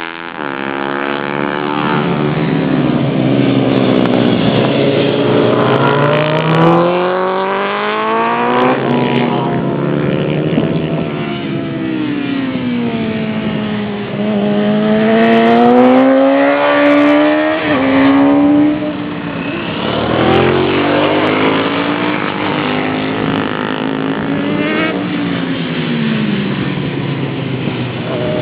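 Pit bike with a YX single-cylinder four-stroke engine being ridden hard, revving up and down: the pitch climbs under throttle, then drops sharply at each gear change or lift-off, over and over.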